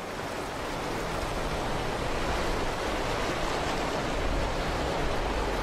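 Steady rush of water from a swollen river running over rapids, building slightly over the first second and then holding even.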